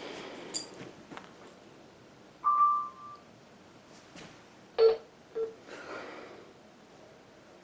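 Quiet background between broadcasts, with one short electronic beep about two and a half seconds in and two faint clicks near the five-second mark.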